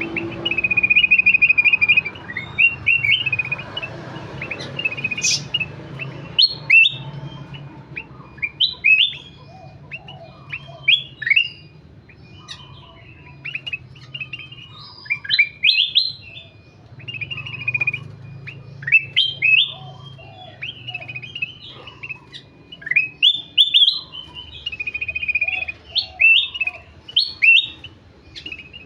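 Kutilang emas bulbul singing busily: a steady stream of short, bright chirps and quick rising whistled notes, in clustered phrases with brief gaps, over a faint low hum.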